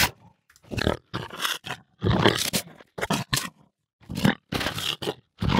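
A recording of a jaguar growling, played back as a series of about seven short, rough grunts and snarls. A sharp click comes right at the start.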